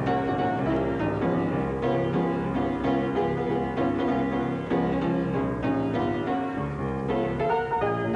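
Instrumental music score for a silent film, busy, with notes changing quickly.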